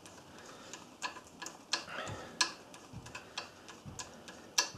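ARP head-stud nut being spun down a cylinder-head stud by hand, giving light, irregular metallic clicks and ticks a few times a second, with a louder click near the end.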